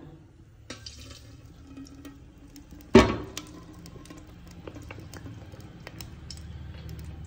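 A metal cooking pan set down on the stovetop with a single loud clunk that rings briefly, about three seconds in. Around it are light clinks and small liquid sounds as ghee is poured into the pan.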